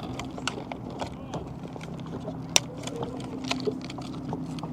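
Scattered light clicks and knocks of handling on a fishing boat, with one sharper knock about two and a half seconds in, over a steady low hum.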